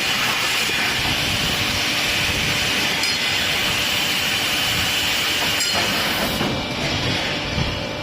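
Steady hiss and rumble of heavy machinery on a truck wheel rim production line, with a few sharp metallic clicks; the high hiss thins out about six and a half seconds in.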